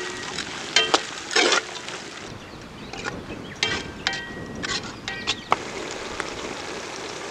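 Steel ladle clinking and scraping against a black iron kadai while stirring frying onions and chillies: a string of irregular metallic clinks that ring briefly, with one longer scrape, over a steady hiss.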